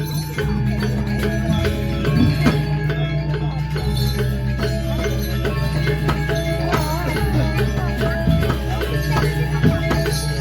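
Balinese gamelan playing: bronze metallophones and gongs ringing in a fast, dense run of interlocking strokes over a steady low gong tone.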